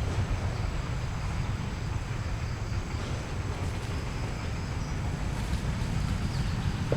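Steady low rumble of wind buffeting the microphone, with a lighter outdoor hiss above it.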